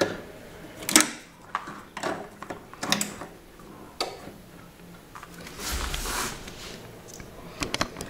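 Scattered clicks and knocks of equipment being handled, with a short rustle about six seconds in.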